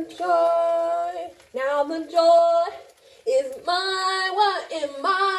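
A woman singing unaccompanied: three long held phrases with short gaps between them.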